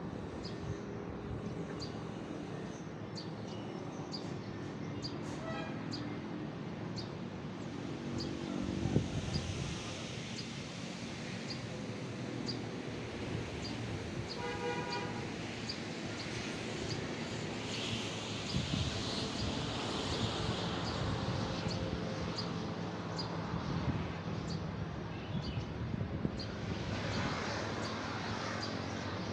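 Road traffic on a mountain road: vehicle engines running past, one louder near a third of the way in, and a short car horn toot about halfway. A faint high chirp repeats about once a second throughout.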